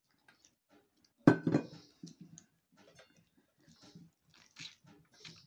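Eating close to the microphone: a sharp bite about a second in, then chewing with many small crunches and clicks.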